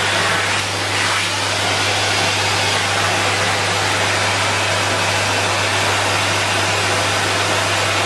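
Henry vacuum cleaner running steadily: an even rushing noise of motor and suction with a constant low hum underneath.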